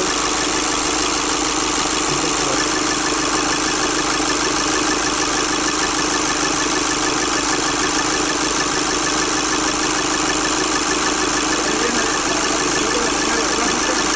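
Common-rail diesel engine with a Bosch CP4 high-pressure pump idling steadily.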